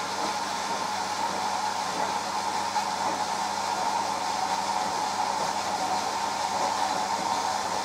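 Hoover AXI washing machine running through its delicate 40°C programme: a steady whirring hum with an even tone and no breaks.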